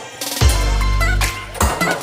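Background music with a drum beat and a held bass note.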